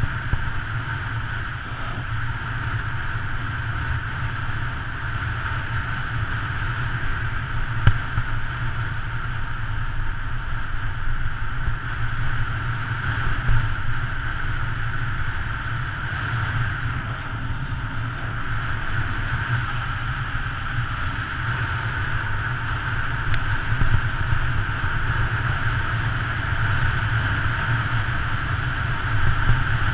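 Wind rushing over a bike-mounted camera's microphone at speed on a road-bicycle descent, with road noise: a steady low rumble with a band of hiss above it. There are a few brief knocks.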